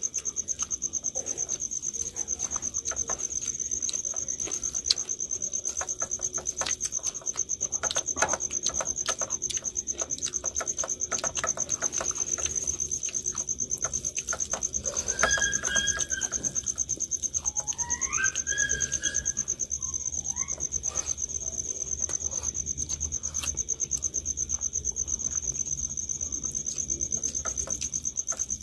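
A cricket chirping in a steady, fast-pulsing high trill, over soft clicks and smacks of hands mixing and eating rice and egg curry from steel plates. A bird calls a few times about halfway through.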